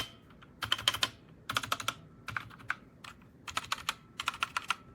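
Typing on a Newmen GM610 60% mechanical keyboard with red (linear) switches: about five short bursts of quick keystroke clacks with brief pauses between.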